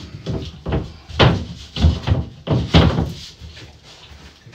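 A plasterboard ceiling sheet knocking and thumping against the timber ceiling battens as it is pushed up and shifted into place: five or six dull knocks in the first three seconds, then quieter.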